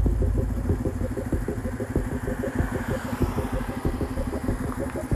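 Motorcycle engine idling with an even, quick beat. A heavier low rumble in the first second eases off.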